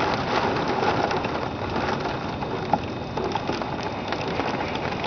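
High wind blowing in gusts, with rain spattering against a window: a steady rushing dotted with many small ticks.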